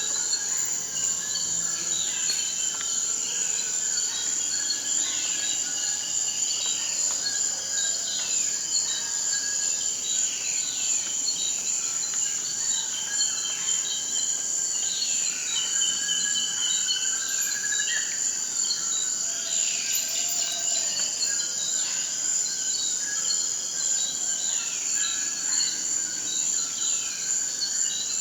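Rainforest ambience: a steady high-pitched insect drone with a faster pulsing chorus beneath it, over many short falling animal calls repeating throughout.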